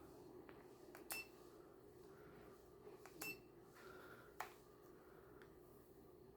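Faint steady hum with three light metallic clinks, the second and third about a second and a half apart.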